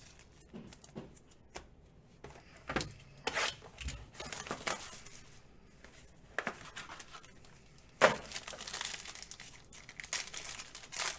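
Trading card pack wrappers being torn open and crinkled, with cards being handled; irregular rustling and crackling, with the loudest tear about eight seconds in.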